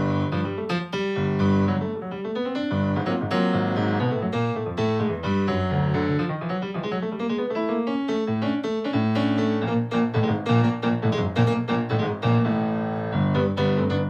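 Piano-toned keyboard playing jazz: sustained chords and low notes under runs of quick notes.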